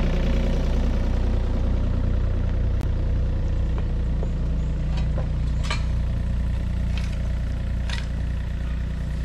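Diesel engine of a small excavator running steadily while it sets rocks, with a few short sharp knocks.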